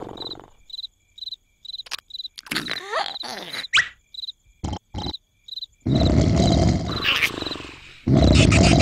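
A person snoring loudly: a long snore about six seconds in and another near the end. In the quiet between snores an insect chirps steadily, a few times a second.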